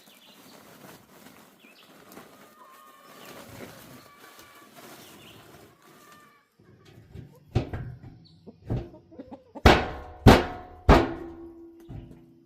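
Chickens clucking faintly, then about six loud knocks and bangs from about seven and a half seconds in, the three loudest close together near the end and the last one ringing on, as used pen bedding is pushed into a barrel.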